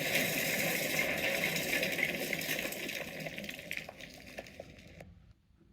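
A steady rushing hiss with faint crackles, fading and then cutting off suddenly about five seconds in.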